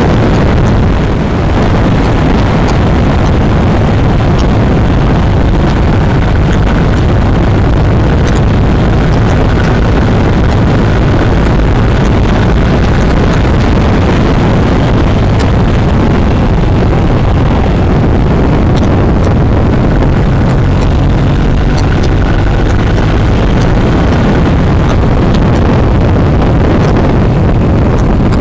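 Motorcycle cruising at a steady road speed: engine hum buried under heavy wind rush on the microphone, steady throughout with a brief dip about a second in.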